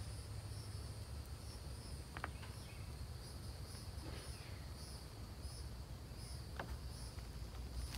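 Outdoor insect chorus of crickets chirping high and steady, one part pulsing regularly a little under twice a second. A low rumble runs underneath, and three brief sharp sounds come about two, four and six and a half seconds in.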